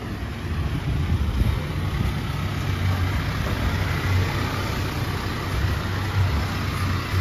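Toyota HiAce van's engine idling with a steady low rumble.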